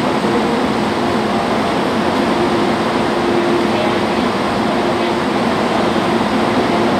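Steady running noise inside a Hong Kong MTR train carriage: an even rumble with a faint steady hum over it.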